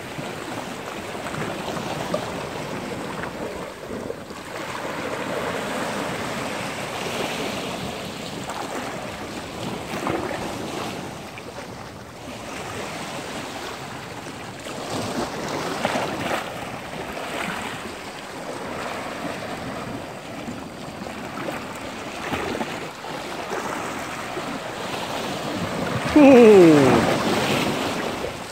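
Sea surf breaking and washing over shore rocks, with wind buffeting the microphone. Near the end, a short pitched sound glides sharply downward; it is the loudest thing heard.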